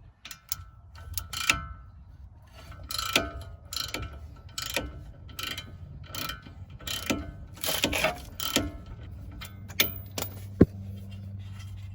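Socket ratchet clicking in short, uneven runs as a 17 mm brake caliper bolt is loosened and backed out, with one sharp metallic knock near the end.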